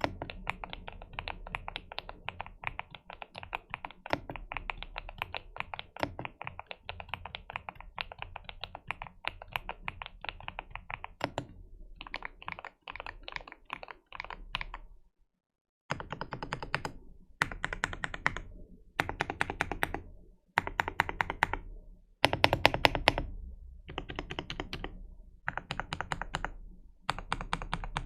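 GMK67 mechanical keyboard with Gateron Milky Yellow Pro linear switches being typed on: a steady run of fast keystrokes for about the first ten seconds, then short bursts of rapid keystrokes with brief pauses between them.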